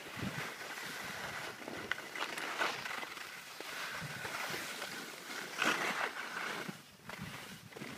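Gear sliding over packed snow: edges scraping and hissing as the rider descends, with louder swells about two and a half and six seconds in.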